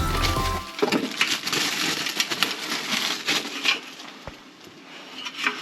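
Background music cuts off under a second in, leaving scattered rustling, scraping and light clicks of hands working at a duct opening, pulling out a foam sealing plug. The handling grows quieter in the second half.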